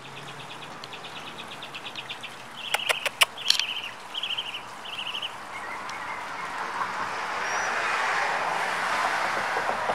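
Outdoor ambience. A rapid, even chirping trill is followed by short chirp bursts and a few sharp clicks about three seconds in. Then a rushing noise swells in and slowly eases off.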